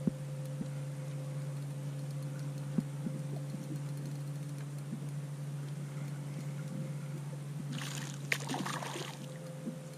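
Steady low hum of the boat's motor, with a few light clicks. About eight seconds in, a hooked fish splashes and thrashes at the surface beside the boat for about a second.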